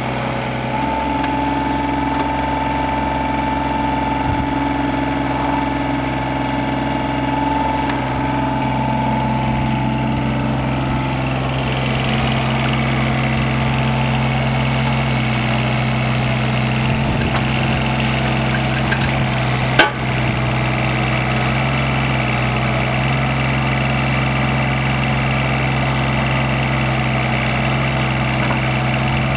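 Yanmar VIO 25 mini excavator's three-cylinder 3TNV76 diesel running steadily while the boom, arm and swing are worked, with a higher steady whine over the first ten seconds or so. A single sharp click about twenty seconds in.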